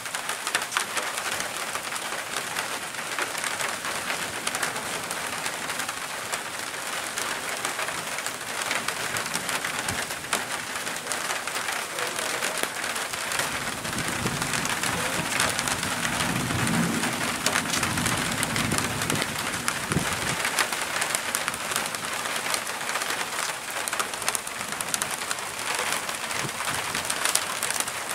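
Steady patter of rain during a thunderstorm, with wind. About halfway through, a low rumble of distant thunder rolls for several seconds, then fades.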